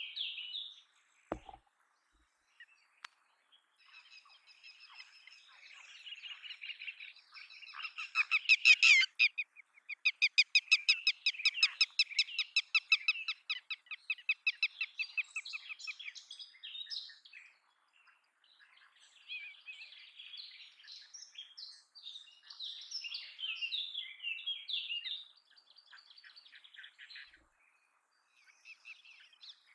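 Red-wattled lapwing calling: sharp, repeated notes, with a fast even run of loud notes about eight to thirteen seconds in, about five a second, and looser, quieter bursts of chirps before and after.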